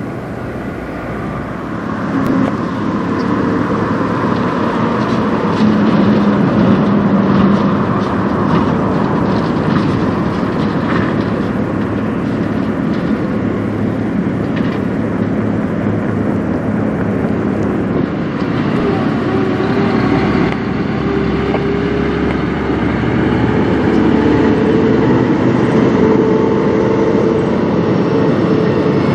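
Diesel semi trucks (tractor-trailers) driving past one after another: engines running and tyres rolling on the road, with the sound changing as each truck gives way to the next.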